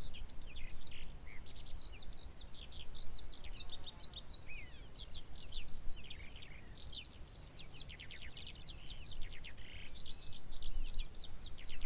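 Songbird twittering without a break: a rapid stream of high chirps and short down-slurred notes, over a faint low background rumble.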